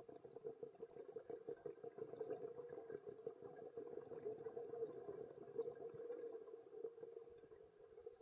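Underwater recording: a dense, irregular crackling and bubbling starts suddenly and thins out toward the end, over a steady low hum.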